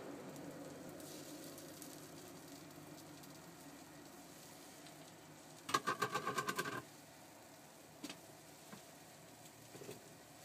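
Takoyaki batter sizzling faintly in a takoyaki pan over gas burners. About six seconds in, a loud fast rattle of rapid strokes with a ringing pitch lasts about a second, and a few light clicks follow.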